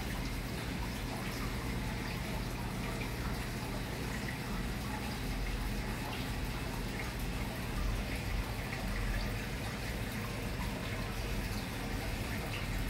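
Aquarium water bubbling steadily as a stream of air bubbles breaks at the surface, over a steady low hum.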